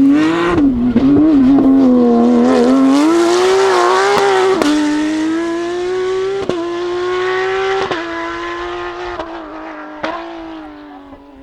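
Porsche 911 GT3 Cup's flat-six racing engine running at high revs, pitch wavering and climbing, with a few short sharp cracks from about halfway on; it grows quieter near the end.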